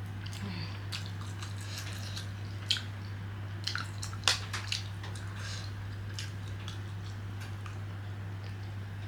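Close-up eating sounds: wet chewing and biting, with a scattering of sharp clicks and crackles, the loudest a few seconds in. A steady low hum runs underneath.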